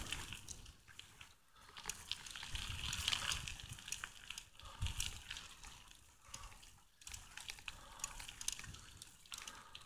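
Bicycle rolling along a sandy forest dirt path: the tyres make a light hiss on the ground, with scattered small clicks and rattles from the bike.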